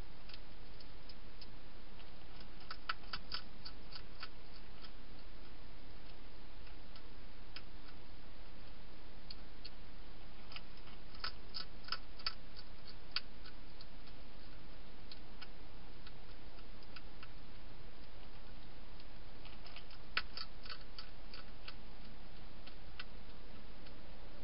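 A wild hedgehog crunching dry food, heard as three short runs of rapid, sharp clicks with a few scattered single clicks between, over the steady hiss of the camera's microphone.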